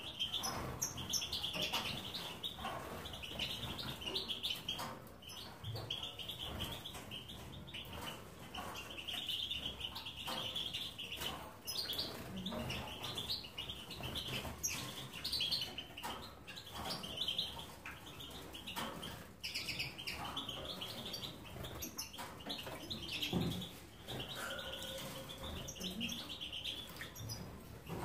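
Caged finches, goldfinches and canaries, chirping and twittering together, many short calls overlapping without a break.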